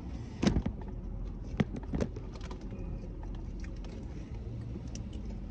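Steady low hum inside a car, with a few short knocks about half a second, a second and a half, and two seconds in.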